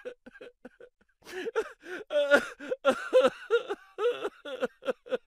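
Laughter: a run of short, repeated ha-ha sounds, with a longer rising vocal cry about two seconds in.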